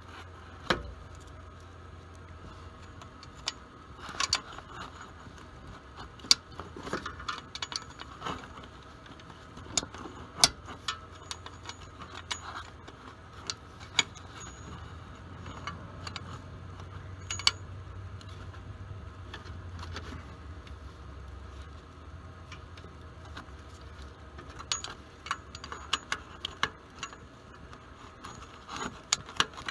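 Irregular sharp metallic clicks and clinks of a wrench being worked on the transmission cooler line flare nuts at the side of the transmission, over a low steady hum.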